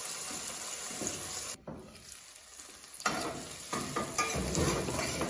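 Onions and bell peppers sizzling in olive oil in a pan as they are stirred. The sizzle drops away suddenly about a second and a half in and comes back louder about a second later, with the scrape and clatter of the stirring.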